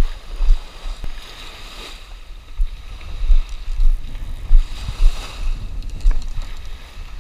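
Wind buffeting the camera microphone in irregular low rumbles, over small waves washing up on a sandy beach, the surf hiss swelling about a second and a half in and again about five seconds in.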